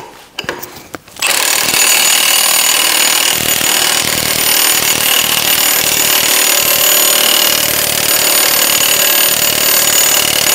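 Cordless Milwaukee impact wrench hammering continuously, starting about a second in, as it runs a backwards lug nut down a new wheel stud to pull the stud into the axle flange.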